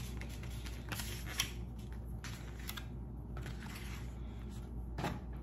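A few soft clicks and scrapes of a metal spoon scooping rice on a paper plate, over a steady low room hum.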